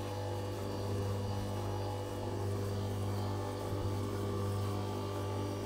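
Electric kitchen mixer motor running steadily, churning waffle batter with flour just added: a constant low electric hum.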